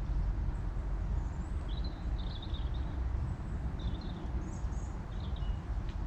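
A small bird calling in several short high chirps over a steady low rumble.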